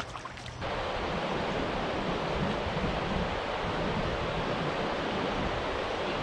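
Steady rushing wash of river water running over a shallow, rocky riffle. It starts suddenly about half a second in, after a few brief clicks.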